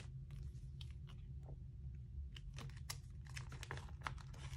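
Clear plastic binder pocket sleeves crinkling and clicking as photocards are slid into them, a quick irregular run of small taps and rustles.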